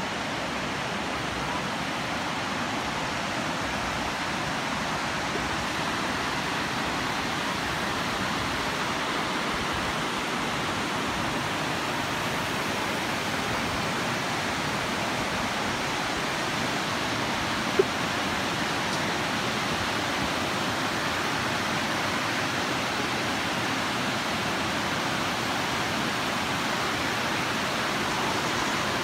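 River water rushing over a low dam and across rocky shoals, a steady even rush of water. A single sharp click sounds once, a little after two-thirds of the way through.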